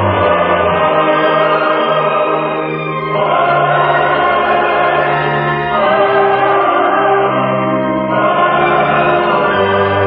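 Choir singing slow, sustained chords that shift to a new chord every two to three seconds, as opening music of a 1947 radio drama. The sound is narrow and dull, with no highs, as in an old broadcast recording.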